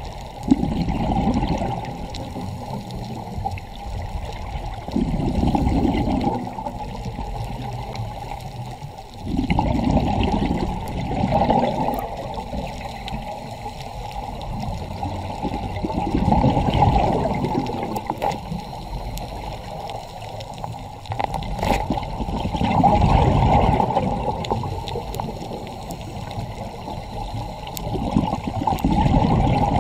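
Scuba diver breathing through a regulator underwater: exhaled bubbles surge in a low bubbling rush about every five to six seconds, with a steadier water hiss between breaths.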